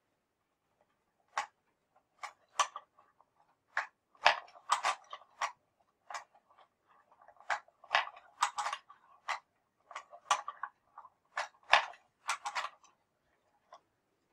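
Hand-cranked wooden automaton being worked and handled: its wooden mechanism and parts click and knock irregularly, often several in quick succession.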